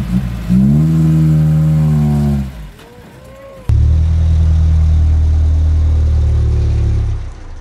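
Engine of a six-wheel dump truck stuck in dirt, revved hard twice as the driver tries to drive it out. There is one burst of about two seconds, a short drop, then a longer steady burst starting abruptly about halfway through.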